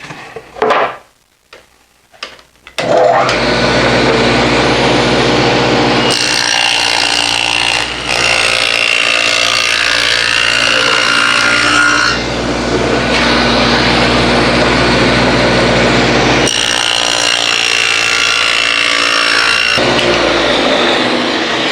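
Table saw with a dado blade starting up about three seconds in and running, cutting rabbets across the ends of Masonite-skinned plywood panels. The sound grows louder and brighter during two long stretches of cutting.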